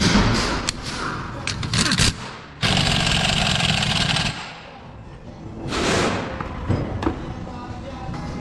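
Workshop tool sounds during a wheel hub bearing replacement: sharp metallic knocks, then a power tool runs steadily for about a second and a half and stops abruptly, followed by a short swelling whoosh.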